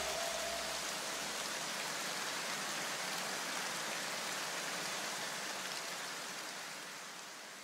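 A steady rushing hiss of noise, with no pitch or beat, that slowly fades out near the end.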